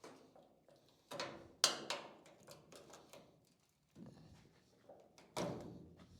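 A few sharp knocks and clunks with small clicks between them, the loudest about a second and a half in: hand work on the truck's trim and hardware after a stuck trim clip would not come loose.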